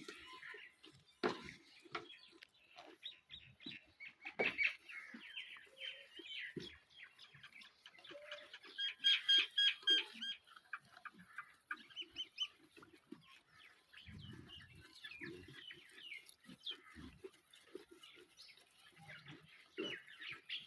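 Farmyard birds: chickens clucking and small birds chirping, with a run of loud repeated calls around the middle and scattered knocks.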